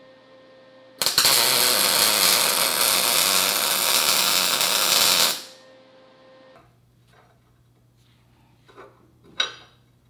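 MIG welder arc crackling steadily for about four seconds as a steel spring tab is welded to the bar, starting about a second in and cutting off sharply. Two short metallic clinks follow near the end.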